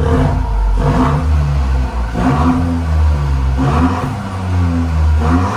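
Ford Fiesta ST Mk8's 1.5-litre turbocharged three-cylinder revved in a series of short throttle blips, each rising and falling in pitch, through a newly fitted RS-style exhaust with its valve open in sport mode.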